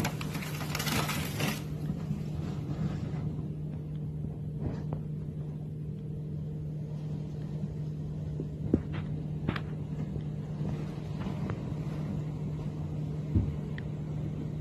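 Steady low drone of a car heard from inside the cabin, with a gust of wind noise in the first second and a half and a few faint clicks.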